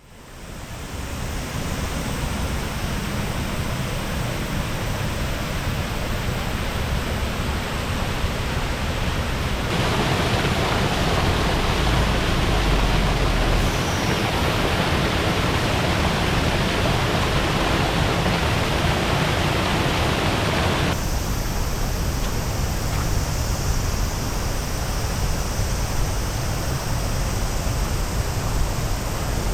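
Steady rush of a low, high-volume waterfall. It fades in at the start, becomes abruptly louder and brighter about ten seconds in, and drops back just as suddenly about twenty seconds in.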